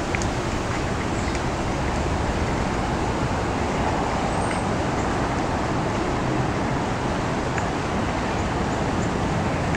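Steady outdoor background noise: a continuous, even roar with no clear source standing out, and a few faint high ticks now and then.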